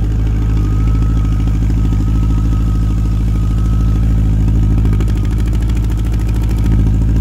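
Yamaha FJR1300 inline-four idling steadily shortly after a cold start, through a modified 4-2 header into true dual Delkevic tri-oval mufflers with the baffles in.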